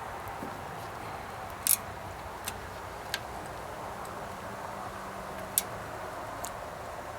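Scattered sharp clicks and clinks of metal tools and air-cleaner parts being handled during reassembly, about five or six over several seconds, the loudest about one and a half seconds in, over a steady low background hum.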